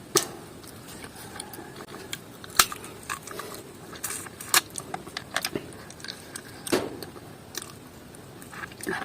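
A person eating close to the microphone: chewing with scattered sharp clicks and taps, a few of them much louder than the rest.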